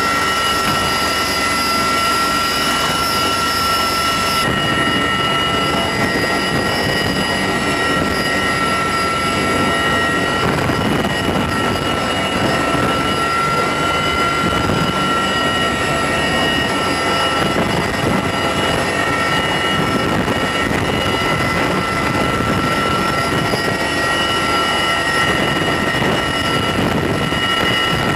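Steady cabin noise of a CH-53E Super Stallion heavy-lift helicopter, heard from inside with the cargo hatch open, as it lifts a slung external load. Dense rotor and engine noise runs throughout, with several steady high-pitched whines above it.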